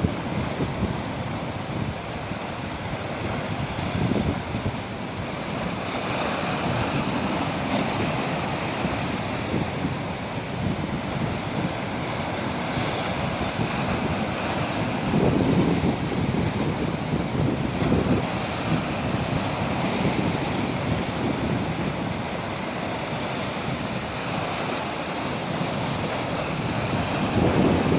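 Ocean waves breaking and washing on the shore in slow swells, with wind buffeting the microphone.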